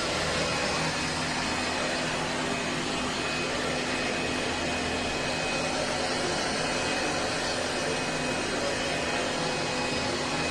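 ILIFE A12 Pro robot vacuum running: a steady whirring noise of its suction fan and brushes, with faint steady tones running through it.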